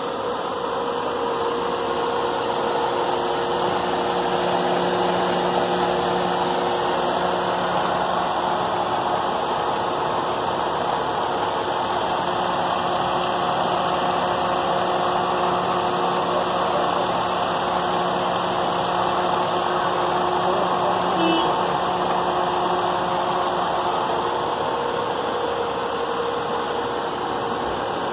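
Suzuki Khyber car engine idling steadily, freshly rebuilt after a complete overhaul.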